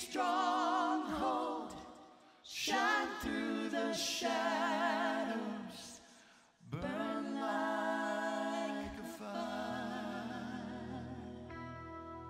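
Worship singers singing a slow, nearly unaccompanied passage in three long phrases with vibrato. About three-quarters of the way through, a low held instrumental note and soft sustained chords come in under the voices.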